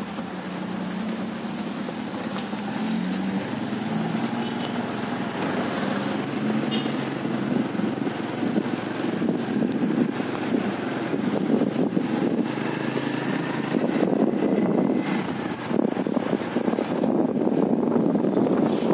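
Motorcycle being ridden along a road: its engine runs steadily under wind rushing over the microphone.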